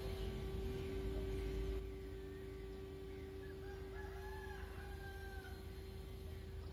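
A rooster crowing once, a single long call starting about three and a half seconds in, over a steady low hum. A low rumble in the first two seconds then drops away.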